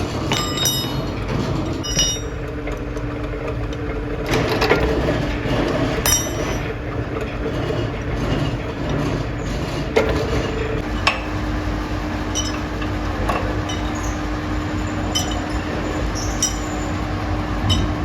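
Factory machinery running with a steady hum and a held tone, while steel parts clink against metal now and then, each clink ringing briefly.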